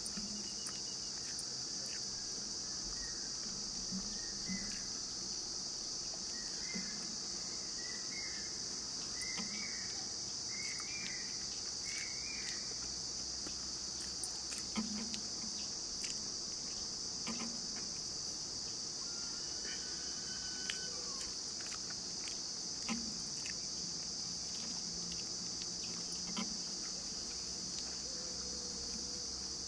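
Steady high-pitched insect chorus, with faint clicks and soft low thumps of eating by hand. A short run of about half a dozen chirps comes about a third of the way in.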